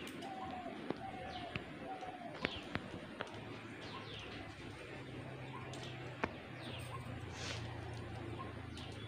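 Scissors snipping through long hair, a handful of sharp clicks in the first three seconds and one more about six seconds in, over birds chirping and doves cooing in the background.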